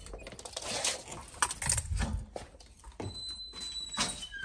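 Scattered light clicks and knocks of keys and a flat door being handled, with a faint thin high tone for about a second from about three seconds in.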